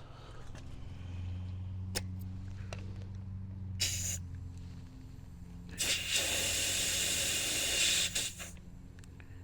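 Compressed air hissing out of the tire-inflation hose and valve: a short burst about four seconds in, then a longer hiss of about two and a half seconds. A steady low hum runs underneath, with a few clicks.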